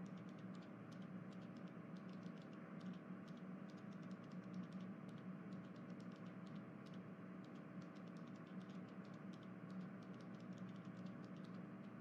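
Quiet room tone: a steady low hum with many faint, irregular light clicks.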